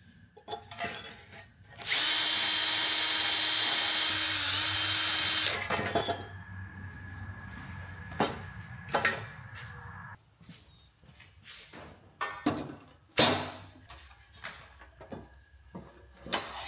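Milwaukee M18 cordless drill running at speed for about three and a half seconds, its pitch dipping briefly near the end of the run, followed by a series of short knocks and clatters.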